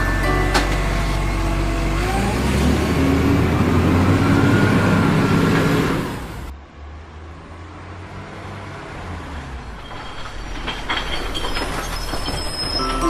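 The small electric motor and plastic gears of a wired-remote toy dump truck whirring as it tips its bed. The sound drops off sharply about six and a half seconds in, leaving quieter plastic clicks.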